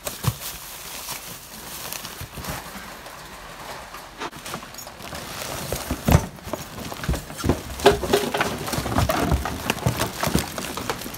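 Rummaging through a dumpster: cardboard boxes being shifted and handled among trash bags, an irregular run of knocks, scrapes and rustles, with the sharpest thumps about six and eight seconds in.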